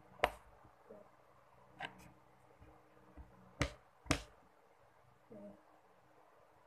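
Sharp clicks and taps as a small round plastic case is handled on a desk: one near the start, one about two seconds in and a close pair around four seconds, with a softer bump later.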